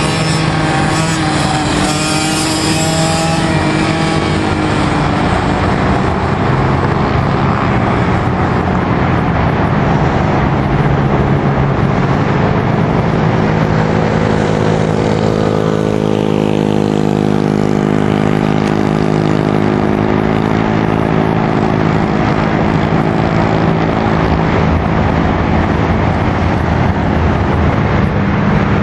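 Mini motorcycle engines racing on track, running hard throughout with their pitch rising and falling as the riders rev up and back off through the corners.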